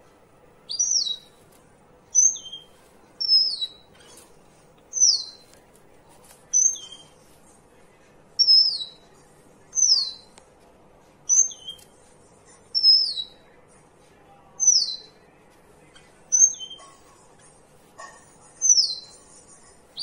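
Caged finch giving short, high calls about every one and a half to two seconds. Each call is a quick falling note, and some have a fainter, lower second note after them.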